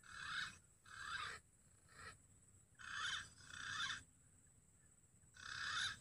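Green pigeon (punai) calls: six short calls of about half a second each, coming in irregular bunches with short pauses between them.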